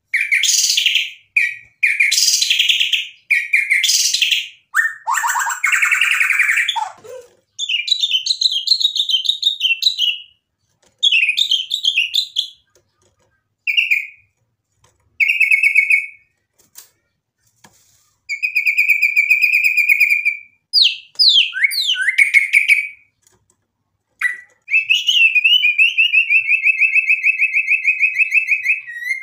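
White-rumped shama singing vigorously in bouts of a few seconds with short silences between. The bouts are fast chattering and whistled phrases, a falling sweep about six seconds in, and long buzzy trills held at one pitch, the longest near the end.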